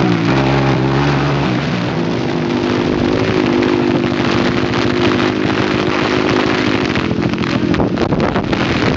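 Sport quad's engine idling steadily, its pitch stepping up slightly about two seconds in.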